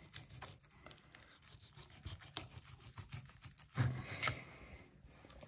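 Fillet knife cutting and scraping through a raw shark fillet on a plastic cutting board as the bloodline is trimmed out: faint, irregular scratching and small clicks, a little louder around four seconds in.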